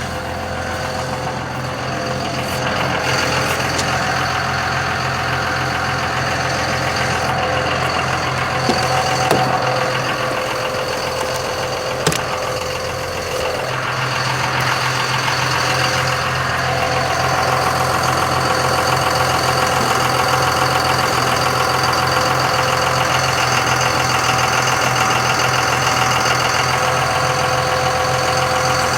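A vehicle engine idling steadily throughout, with a low hum that fades for a few seconds near the middle and then returns. Two or three sharp metal knocks sound partway through.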